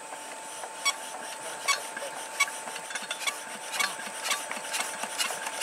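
Irregular metallic clicks and scraping, about two a second, from hands working on a stopped old Petter single-cylinder diesel engine; the engine is not running.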